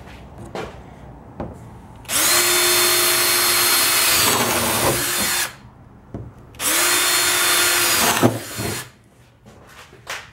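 Power drill with a spade bit boring through a beadboard panel in two runs, about three and a half seconds and then about a second and a half, the motor spinning up quickly at the start of each. These are starter holes for a jigsaw cutout. A few short knocks come between and after the runs.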